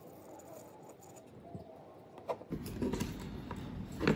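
Soldering iron working on battery terminals in a plastic spring clamp with faint scratching, then a click and louder rustling handling as the iron is taken away and the clamp is gripped, with a sharp knock near the end.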